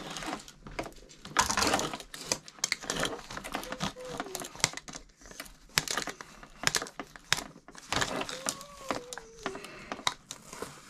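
A vertical blind wand scraping and knocking inside a clogged Bissell PowerForce vacuum hose as it is pushed in to work loose the packed debris: irregular clicks, rattles and scratchy rustling.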